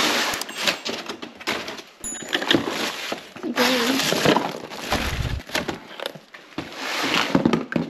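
Mixed household items clinking, knocking and rustling as a cardboard box is rummaged through by hand: a string of short sharp clicks and crinkly handling noises.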